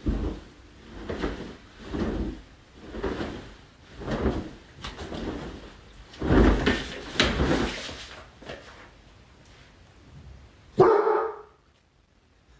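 A dog barking repeatedly, about once a second, then one louder, longer bark near the end that cuts off suddenly.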